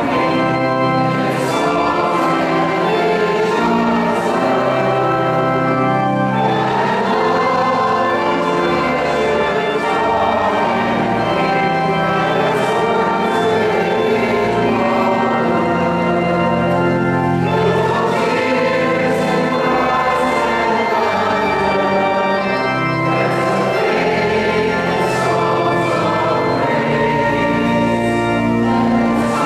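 A choir singing a hymn over sustained pipe or electronic organ accompaniment, phrase after phrase without a break.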